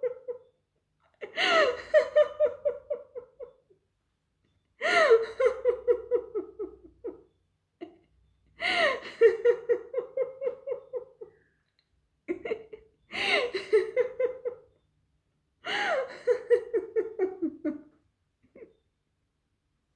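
A woman laughing on purpose in a laughter-yoga exercise, with her mouth covered, in about five separate bouts of two to three seconds each with short silences between. Each bout opens with a high whoop and runs into quick ha-ha-ha pulses that fall in pitch.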